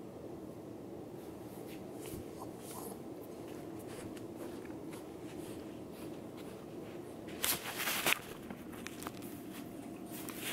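Steady low room hum with a Labrador puppy moving about on a hardwood floor: a few faint paw and claw sounds, and two louder scuffles a little past halfway.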